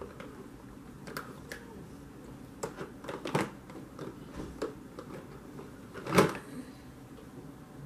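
A handful of short soft knocks and rustles from a makeup powder brush being handled and swept over the face, the loudest a little after six seconds in.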